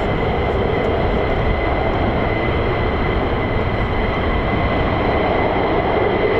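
Distant roar of an F-35A Lightning's single turbofan engine (Pratt & Whitney F135) passing high overhead: a steady rumble with a thin, steady high whine over it.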